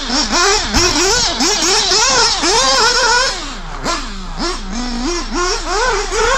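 Nitro RC buggy's small FX glow engine revving hard in quick throttle bursts, its high pitch sweeping up and down with each burst. Around the middle it falls to lower, slower revs for about a second, then the rapid revving picks up again.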